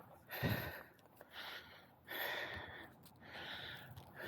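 A person breathing close to the microphone: soft, hissing breaths about once a second.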